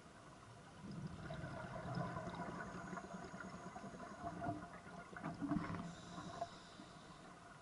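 Scuba divers' exhaled bubbles gurgling and burbling out of a regulator underwater, heard from close by, in a long exhalation from about a second in until near the end, over a faint steady hiss.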